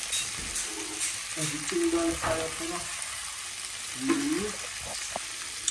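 Chicken pieces, onions and sweet peppers sizzling in a frying pan on a stove burner: a steady frying hiss with scattered small crackles.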